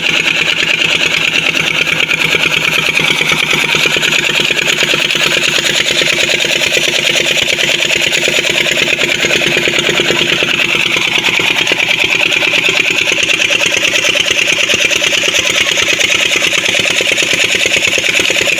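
Old 16 hp Petter diesel engine running steadily at constant speed with a rapid, even beat, driving a tubewell pump by flat belt. The engine is in bad condition.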